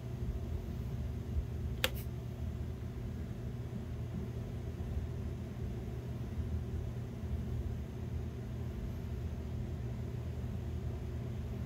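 Snips clicking shut once, sharply, about two seconds in as they cut the stitching threads of a cotton buffing wheel, over a steady low machine hum.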